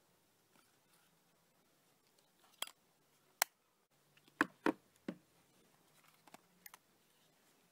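A series of sharp plastic clicks and knocks from portable cassette recorders being handled, their battery doors and cases snapping and bumping. There are about seven in all, the loudest three close together just past the middle.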